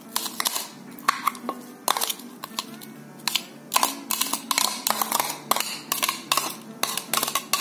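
Metal spoon clinking and scraping against glass bowls as diced onion is scraped from one bowl into another, in irregular sharp taps, several a second.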